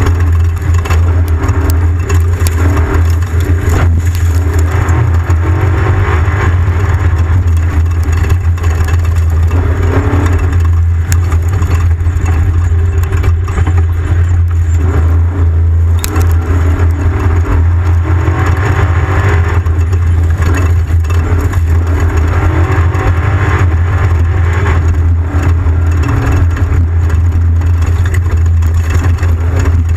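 Off-road race vehicle driving with its engine running in a steady low drone, with continual rattling and scraping from the rough ground.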